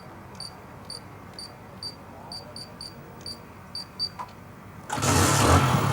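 Electronic keypad of a microcontroller password lock beeping with each key press as the password is entered: about a dozen short, high beeps at an uneven typing pace. About five seconds in, a louder steady running sound with a low hum comes in as the unlocked motorbike starts.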